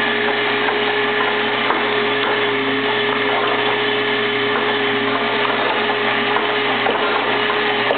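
Little Giant mechanical power hammer's drive running steadily with the ram not striking: a constant whir with a steady hum and no blows.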